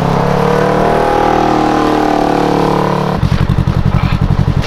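An engine running fast with a steady whine, switching abruptly about three seconds in to a low, rapid chugging.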